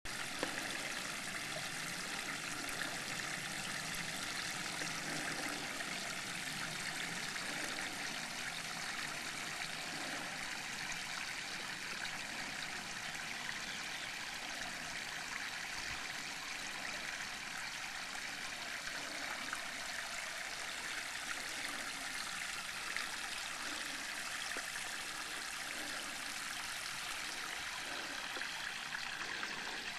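Small stream of water trickling steadily over rock into a pool.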